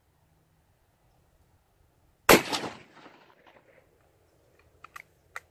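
A single shot from a scoped .308 rifle about two seconds in, its report echoing and dying away over about a second and a half. A few light clicks follow near the end.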